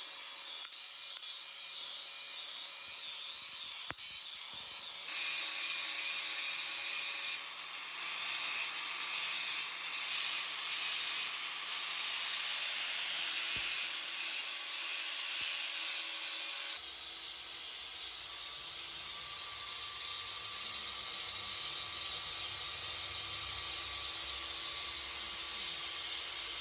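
Rust being scoured off the steel of antique sheep shears with an abrasive: a continuous harsh scraping hiss that changes character abruptly several times.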